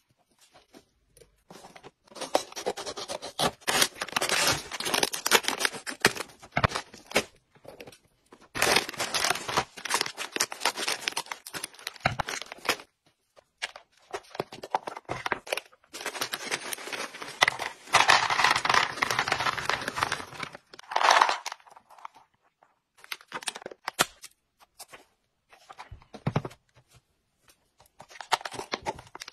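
Paper and foil treat packaging torn open and crinkled by hand. There are three long stretches of tearing and rustling with short pauses between them, then only a few scattered handling noises near the end.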